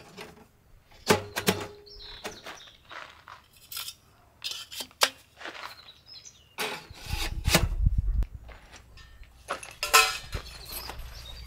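Camping gear being handled: irregular knocks, thunks and clinks like dishes and utensils, a few with a short metallic ring, and a brief low rumble about seven seconds in.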